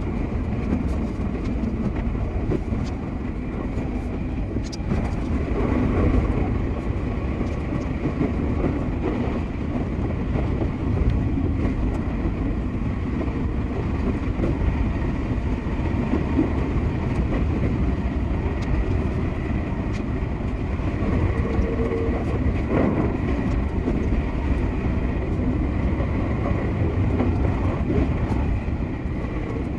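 Sotetsu 8000 series electric train running, a steady rumble of wheels on rail with some clickety-clack over the rail joints.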